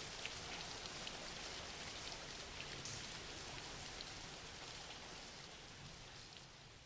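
Steady light rain with many small drop patters, slowly fading out near the end.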